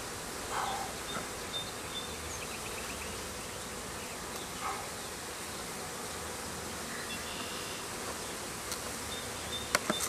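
Honeybees from an opened package buzzing steadily in a swarm, with a few sharp clicks near the end.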